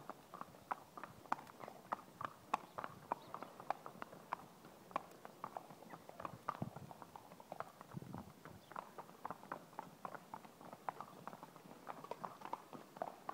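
A horse's hooves clip-clopping on tarmac as it walks in hand: a steady run of sharp hoof strikes, a few each second.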